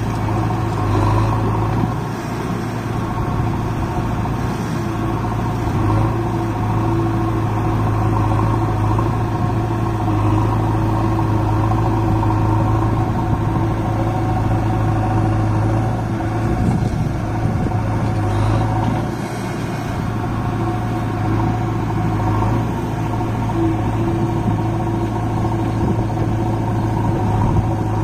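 Diesel engines running steadily, a Massey Ferguson 7250 DI tractor's three-cylinder diesel idling close by with a JCB backhoe loader working alongside, a constant low hum with small dips in level about two seconds in and again a little past halfway.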